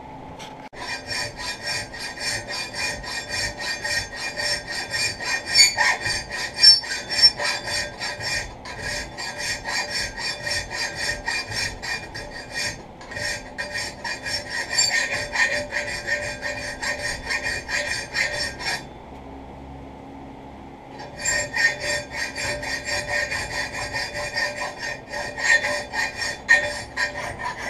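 A hand file rasping across a hardened steel blade (an old scythe blade being shaped into a stock knife) clamped in a bench vise, in a quick, steady rhythm of strokes. The filing stops for about two seconds about two-thirds of the way through, then starts again.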